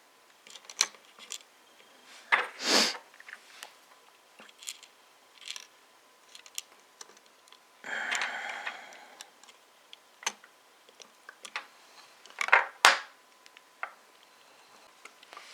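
Small plastic part of a Samsung Xcover 3 being handled and pressed into place on the phone: scattered light clicks and taps, with a few louder clicks and scrapes as it is pushed in and snapped home.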